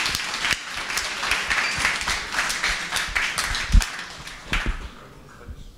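Audience applause, a crowd clapping, dying away near the end. A single low thump sounds about four seconds in.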